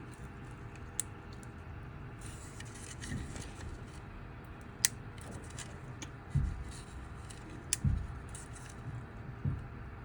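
Light clicking and rattling of small 3D-printed plastic parts as an articulated printed cat is handled and its bottom support pieces are picked at. There are a few sharp clicks and some soft bumps.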